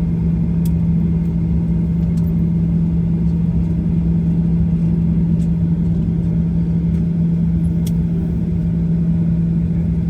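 Steady low drone inside a Boeing 737-800's cabin, with a constant hum and a few faint clicks.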